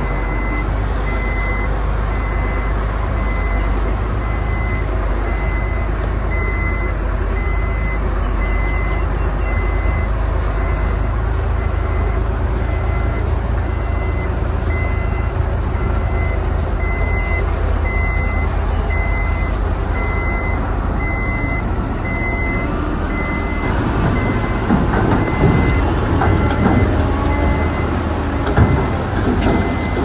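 Heavy construction machine reversing, its backup alarm beeping at an even pace over a steady diesel engine rumble. Rattling and clanking grow louder in the last few seconds.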